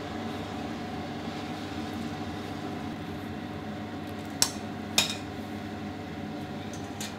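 Steady background hum with a few held tones, broken a little over four seconds in by two sharp metallic clinks about half a second apart as a wire noodle strainer is knocked against a ceramic bowl to empty it.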